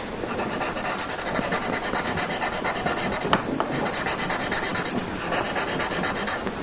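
Graphite pencil rubbing on drawing paper in quick, continuous shading strokes, with one sharp click about three seconds in.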